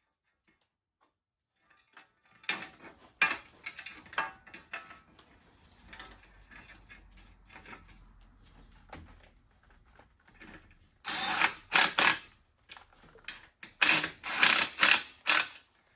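Hand work on metal parts: scattered clicks and rattles, then two clusters of short, loud scraping and clattering strokes near the end, as a steel engine guard is worked and test-fitted against a minibike frame.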